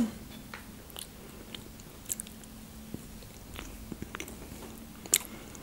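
Close-miked chewing of a soft snack: scattered small mouth clicks and smacks, over a faint steady low hum.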